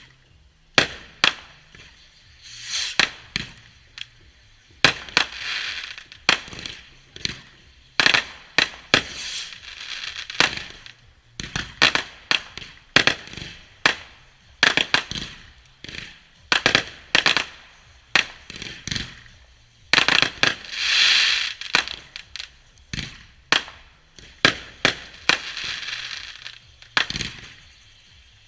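Fireworks going off: many sharp bangs in quick succession, broken by several hissing, crackling bursts that each last a second or two.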